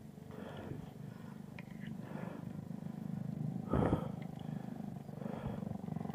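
Bicycle rolling along a paved lane, its tyres and drivetrain making a steady low buzzing hum with a fine fast ticking texture. There is a brief louder rumble about four seconds in.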